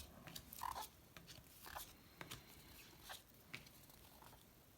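Faint, irregular soft clicks and rustles of trading cards being handled and flicked through by hand.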